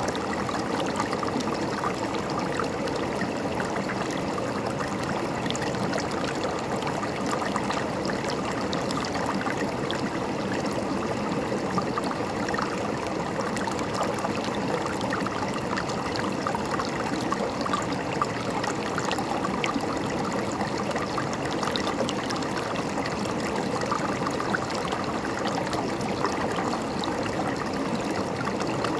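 River water flowing and gurgling over rocks, a steady rushing babble with small splashes throughout.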